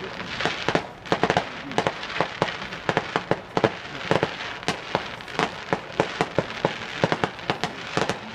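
Fireworks going off at a distance: a rapid, irregular string of sharp bangs and crackling pops, several a second.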